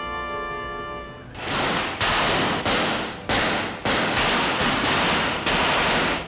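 Held music notes for about the first second, then a run of about seven loud bursts of gunfire from submachine guns, each cutting in sharply and lasting about half a second.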